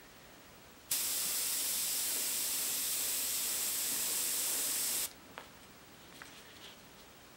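Gravity-feed airbrush spraying ink: a steady hiss of air that starts about a second in and cuts off sharply about four seconds later, followed by a couple of faint clicks.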